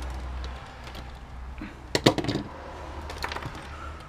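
Light clicks and taps of small metal and plastic parts from a dismantled electric stapler being handled, with a quick cluster of clicks about two seconds in and a few fainter ones a second later.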